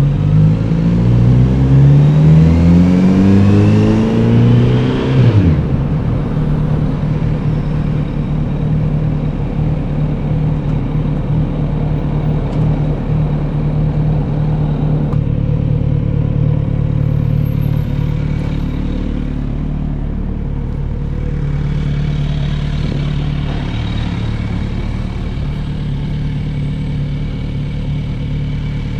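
Kawasaki Z900RS inline-four engine and exhaust revving up with a rising note for about five seconds, then dropping off suddenly and running at a steady low note for the rest.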